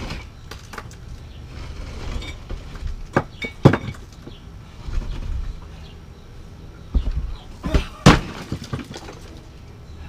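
Mini excavator breaking up cinderblock and concrete: a series of sharp cracks and crashes as the block breaks, the loudest just before four seconds and just after eight seconds in, over the low steady running of the machine's engine.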